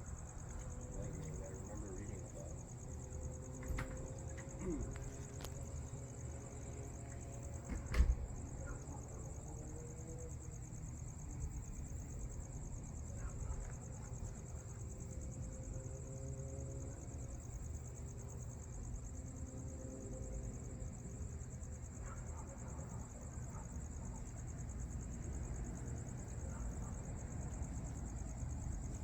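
Night insects chirping in a steady high-pitched chorus, with one sharp click about eight seconds in.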